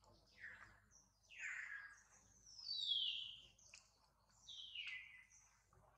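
Bird calls: four whistled notes about a second and a half apart, each falling in pitch, the loudest about three seconds in.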